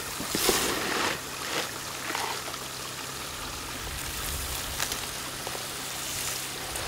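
Water running steadily through a gold sluice. Gravel rattles a few times in the first two seconds as hands spread it on the screen on top, and there is a sharp tick near the middle as more dirt is poured on from a scoop.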